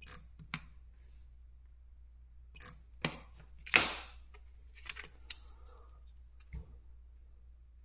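Sharp clicks from a PCB spot welder's probes firing on nickel strip over 18650 cells at a low 15% power setting, then a series of knocks and rattles as the probes are put down and the plastic cell holder is handled. The loudest knock comes a little under four seconds in.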